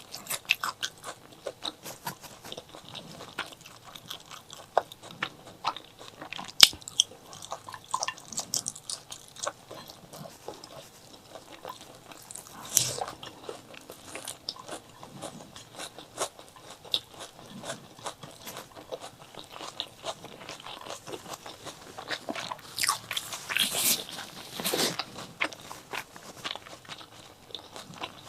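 Close-miked eating sounds: chilies and white rice being bitten and chewed, with rapid crisp crunches and wet mouth clicks, and louder crunchy stretches about halfway through and near the end.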